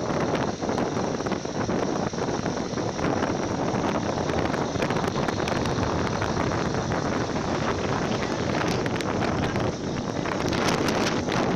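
Steady wind rushing over the microphone of a phone carried on a moving motorcycle, with vehicle noise from the ride underneath.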